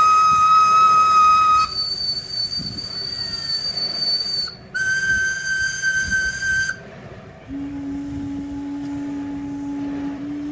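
Riverboat calliope whistles sounded one at a time in a test, each a steady held note. First a note with bright overtones, then a much higher, shrill note, a short break, and another mid-high note; after a brief pause a low note starts and is held to the end.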